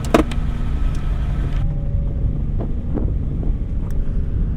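Wind buffeting the microphone, a steady low rumble, with one sharp click just after the start and a few fainter knocks later on.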